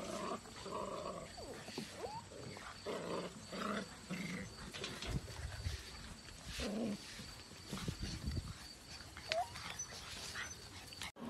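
Labrador retriever puppies growling in play while tugging at a toy, in short irregular bursts, with a couple of brief high rising whines.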